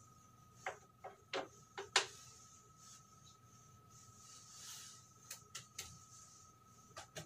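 Light clicks and taps of small objects being handled at a framed picture, in a small echoing room, with a brief soft rubbing sound about two-thirds of the way through. A faint steady high-pitched hum runs underneath.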